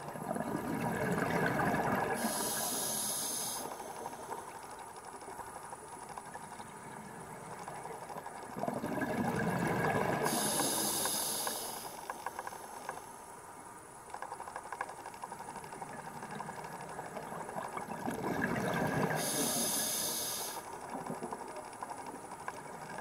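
A scuba diver's open-circuit regulator breathing underwater, three breaths about eight seconds apart. Each breath is a bubbling rush of exhaled air followed by a short, high hiss from the demand valve.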